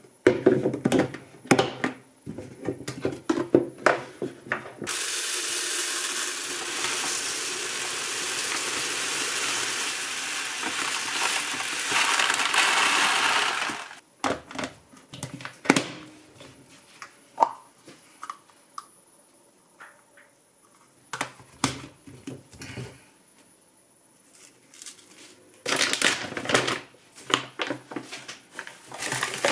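Uncooked rice poured from a bag into a clear plastic storage bin: a steady rushing hiss lasting about nine seconds. Before and after it, knocks and taps of the plastic containers being handled on the counter.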